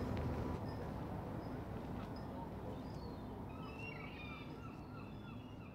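Low, steady rumble of a large cargo ship's engine passing offshore, fading out, with a flurry of short bird calls from about three seconds in.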